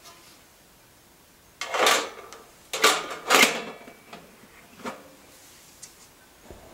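Stainless steel lid of an electric deep fryer being set onto its metal tank: a scraping clatter about two seconds in, two sharp metal clanks around three seconds in with a short ring, then a lighter knock near five seconds.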